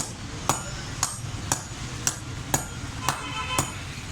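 Steady hammer blows on iron being forged into a sickle, about two strikes a second, each with a short metallic ring.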